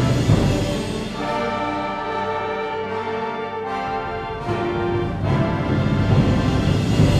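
Symphonic wind band playing sustained brass and woodwind chords over low percussion. The sound thins out about halfway through, then swells again near the end.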